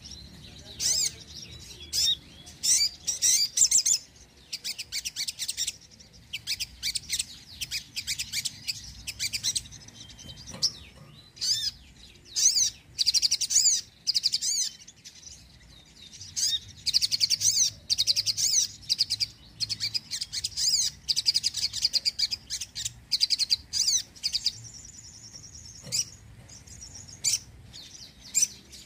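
A sogon sunbird singing: bursts of rapid, high-pitched, twittering chirps and trills, one after another with short pauses between them.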